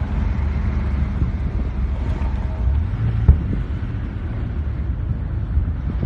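Wind buffeting a phone's microphone, a steady low rumble, with one brief thump about three seconds in.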